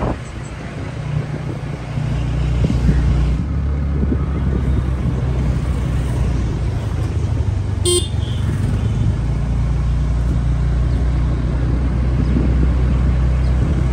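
Steady low rumble of a motor vehicle in motion, growing louder about two seconds in. About eight seconds in there is one very short, sharp sound.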